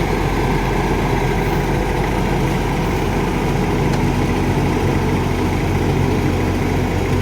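Caterpillar wheeled excavator's diesel engine running steadily with a low, even hum.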